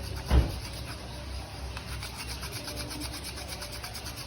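Hand file rasping across the edge of a brake pad, chamfering the corner of the friction material that catches on the rim of the brake disc and makes the pads squeal. There is one knock about half a second in.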